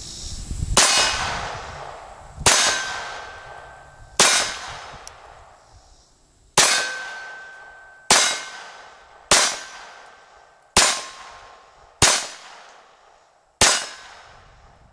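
Nine single shots from a .22 LR pistol, fired at a slow, uneven pace. Each crack is followed by a ring that dies away over a second or so.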